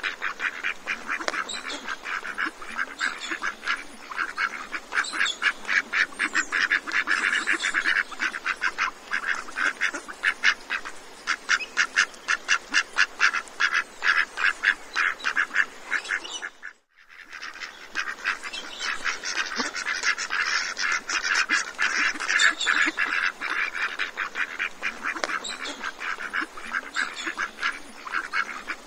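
A flock of ducks calling and quacking, with many rapid overlapping calls every second. The calls break off briefly about two-thirds of the way through, then resume.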